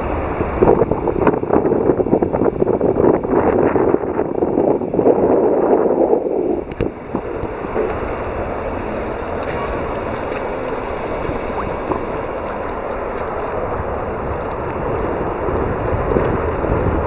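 Wind buffeting the microphone, with harbour water sloshing against the quay wall. It is gusty and uneven for the first several seconds, then settles into a steadier rush.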